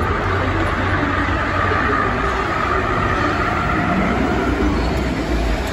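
Jeep Wrangler Rubicon's engine at low revs as it crawls over a steep off-road demo ramp, under the steady low rumble and crowd din of a large exhibition hall.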